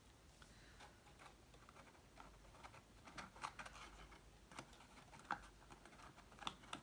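Faint, scattered light clicks and taps of cardstock pieces being handled, growing more frequent after the first couple of seconds.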